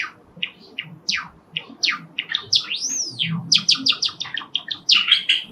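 Java sparrow singing: a run of sharp chirps that quicken, a long whistle that rises and falls just before the middle, then rapid clicking notes toward the end.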